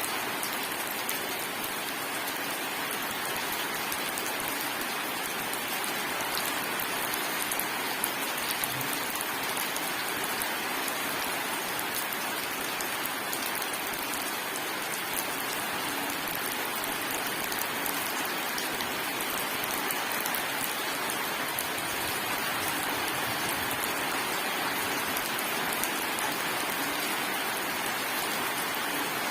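Steady heavy rain falling on surfaces, an even hiss with scattered drop ticks.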